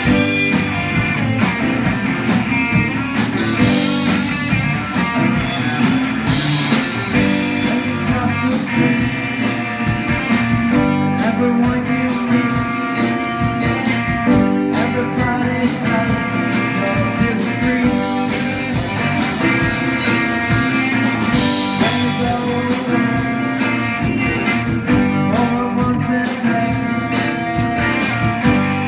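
Live rock band playing a song: electric guitar, keyboards and drums keeping a steady beat.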